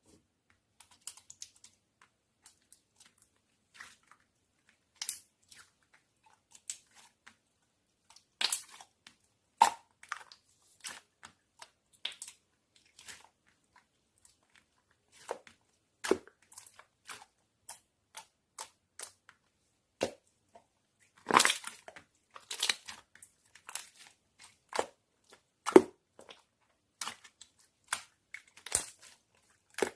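Slime being squished and pressed by hand, giving irregular crackling clicks and pops with short quiet gaps between them.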